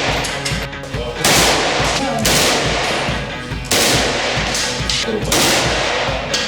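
Kalashnikov assault rifle firing blank cartridges in several bursts of automatic fire, with rock music playing underneath.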